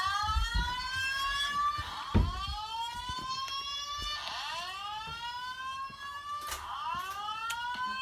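Fire alarm speakers on a Simplex 4100ES voice evacuation system sounding a whoop tone: four rising sweeps, each about two seconds long. This is the alert tone of the looping evacuation message. There is a sharp thump about two seconds in.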